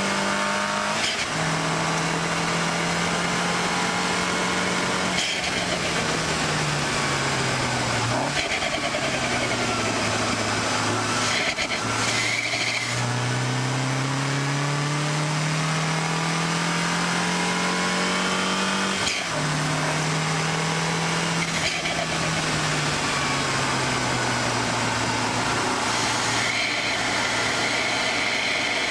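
2014 MINI Cooper S's turbocharged four-cylinder engine being driven hard. Its pitch drops sharply at an upshift about a second in, sinks in steps while the car slows for a corner, climbs steadily as it accelerates out, then drops again at another upshift past the halfway point, over steady wind and road noise.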